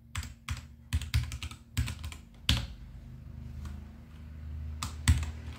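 Typing on a Royal Kludge RK84 V2 mechanical keyboard with Gateron Yellow linear switches. Keys are pressed in a quick run for the first couple of seconds, then single presses come more sparsely.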